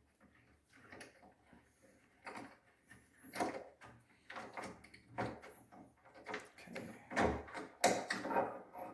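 Allen wrench turning out the neck bolt of a travel double bass: irregular short scrapes and clicks of metal and handling, sparse at first, then more frequent and louder from about three seconds in.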